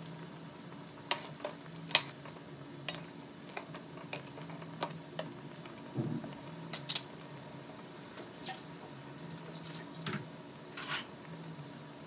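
Metal ladle clinking and scraping against a wok as boiling chicken soup is stirred and skimmed: about a dozen sharp, irregular clinks, the loudest about two seconds in, over a steady low hum.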